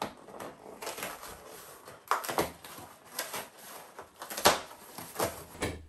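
Glued cardboard flaps of a large flat-pack box being pulled open, the glue seams giving way and the cardboard scraping and rustling in a run of irregular rasps, the loudest about four and a half seconds in.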